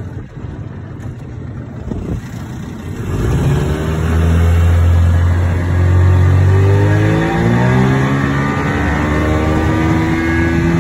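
Mercury 20 hp tiller outboard motor opened up from a low rumble about three seconds in, climbing in pitch again around seven seconds as the boat comes up on plane, then running steady at speed. Rushing water and wind noise run under it.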